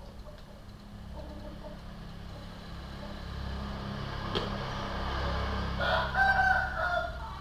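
A rooster crows once, about six seconds in, over a steady low hum; a single sharp click comes a little before it.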